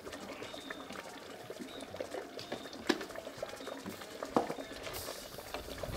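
Thick tomato sauce bubbling and spitting in an aluminium pot, with a few sharp knocks, the loudest about three and four and a half seconds in.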